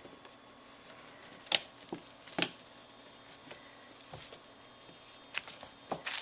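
Kittens playing: scattered soft thumps and scrabbles of small paws on the play structure, with two sharper knocks about one and a half and two and a half seconds in and a few more near the end.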